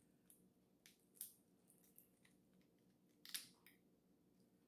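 Faint, sharp cracks and snaps of blue crab shell being broken and picked apart by hand, a few scattered ones with a louder cluster about three seconds in.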